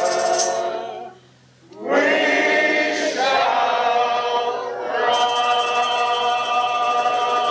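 A choir singing, holding long notes. The voices break off for under a second about a second in, then come back in on a new held note that carries on with only a brief dip.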